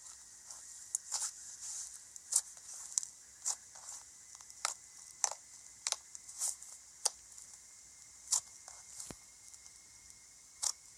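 Slime being squished and poked by hand, giving irregular sticky clicks and small snaps, some close together and some a second or more apart.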